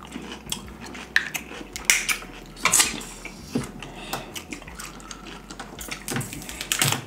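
Close-miked eating: snow crab leg shells snapping and crackling in the hands, mixed with chewing and light knocks against dishes. The sound is a string of irregular sharp clicks.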